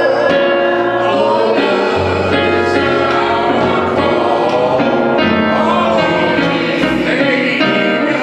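Gospel music: a choir singing over instrumental accompaniment, with a bass line that changes note every couple of seconds.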